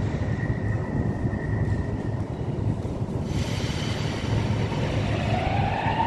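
Metro train, an 81-726.1 'Baltiets', approaching through the tunnel into an underground station: a steady low rumble that grows louder from about halfway through, with a whine rising to a steady high tone near the end.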